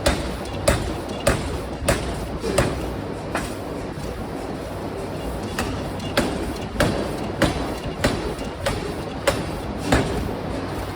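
Forging hammer striking metal in an even rhythm, a bit under two blows a second, pausing for about two seconds midway, over a steady machine hum.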